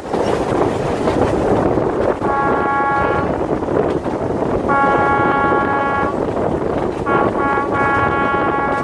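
Narrow-gauge train's locomotive horn sounds three times: a short blast about two seconds in, a longer one in the middle, and a third near the end that stutters twice before holding on. Beneath the horn, the coaches rumble and clatter steadily along the rails, heard from an open window.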